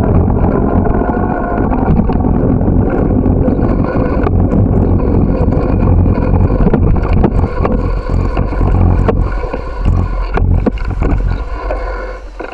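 Wind rumbling on the microphone of a camera carried on a moving bicycle, with frequent clicks and knocks as it rattles over pavement. The rumble eases near the end as the ride stops.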